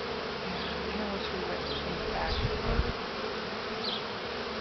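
Honey bees from an opened top-bar hive buzzing in a steady dense hum, with single bees flying close past in short rising and falling buzzes. A brief low bump about two and a half seconds in.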